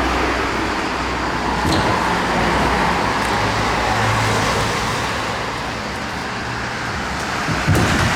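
Steady motor traffic noise with a low engine hum, swelling and easing as vehicles pass. There is a short sharp sound near the end.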